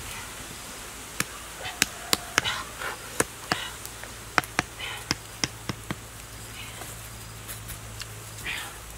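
A knife striking a stick being driven into the ground: about a dozen sharp knocks in an uneven run, stopping after a few seconds.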